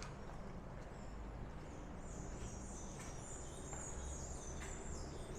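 Rainforest animal calls: rapid, short high-pitched chirping notes, each falling in pitch, starting about two seconds in, over a low steady background rumble.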